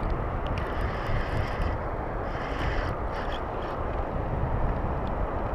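Steady rushing wind noise on the action-camera microphone over open water, with a few faint scattered ticks.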